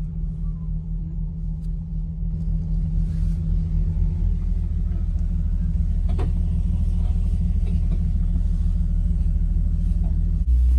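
A vehicle engine running, heard from inside a Jeep's cabin as a steady low drone. It pulses slightly at first, then steadies and grows a little louder over the second half.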